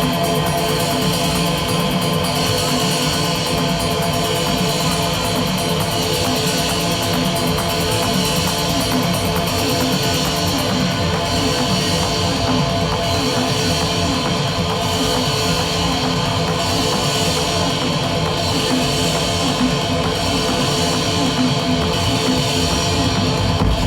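Live industrial techno: a loud, dense wall of distorted electronic noise with held droning tones, steady throughout.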